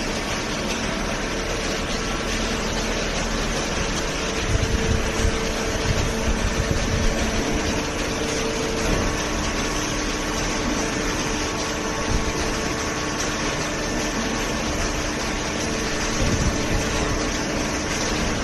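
Hydraulic baler running: a steady machine hum from its motor and pump, with low rumbling thumps about four to seven seconds in and again near the end.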